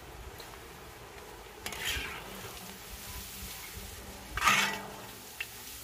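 Potato chips deep-frying in hot oil in an iron karahi, with a steady sizzle. A perforated metal skimmer stirs through the oil, giving two louder swishes, about two seconds in and again, louder, near the end.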